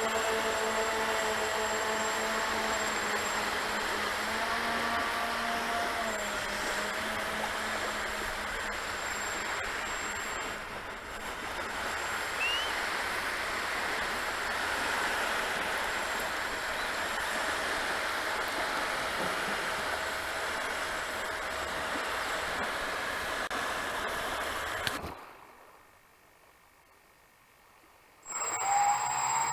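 Twin brushless electric motors of a Multiplex Twin Star BL model seaplane running under a steady rush of air, their whine shifting in pitch with the throttle. About 25 s in the sound drops to near silence for some three seconds, then returns with the motor whine rising in pitch.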